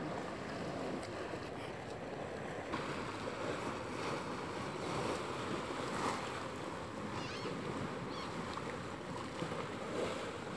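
Small sea waves lapping and washing onto the shore in a steady, even wash.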